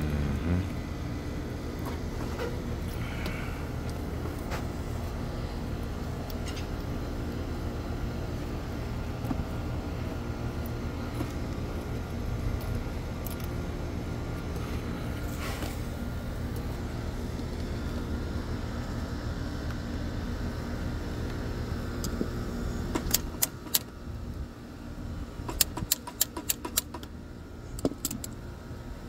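Steady low hum of rooftop air-conditioning equipment running. About 23 seconds in the hum eases, and a run of sharp metallic clicks and clinks follows as the wires and conduit fittings at the disconnect are handled.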